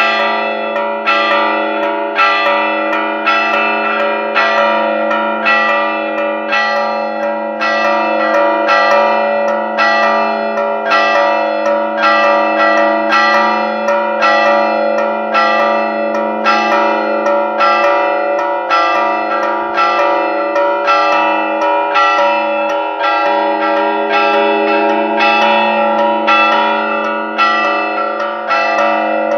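Church bells rung by hand in a festive repique: quick, evenly paced strikes, about two a second, over long-ringing bell tones. This is the peal for the patron-saint novena.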